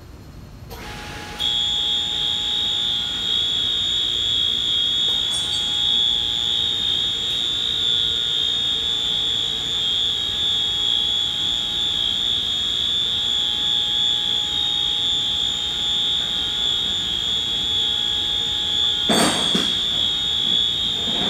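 Overhead bridge crane's warning alarm sounding one continuous high-pitched tone, which comes on about a second and a half in and signals that the crane is in motion, over a fainter steady hum. A short knock near the end.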